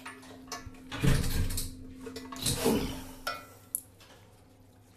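Handling noise as the jet spray's flexible hose and metal bracket are worked into place against a ceramic toilet: two bouts of rustling and scraping, then a couple of light clicks near the end.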